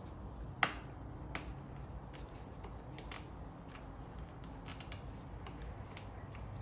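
Scattered sharp clicks and taps of hands and a hand tool working on the ATV's hoses and plastic parts. The loudest click comes about half a second in and another a little over a second in, with fainter ticks after, over a low steady hum.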